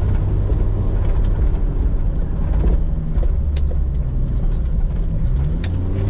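Car engine and road noise heard from inside the cabin while driving, a steady low hum with a few sharp clicks.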